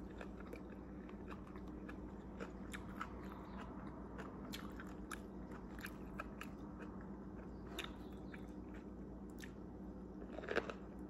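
A person chewing a mouthful of fresh rice-paper spring roll, with faint small wet clicks and crunches, then a louder bite into the roll near the end.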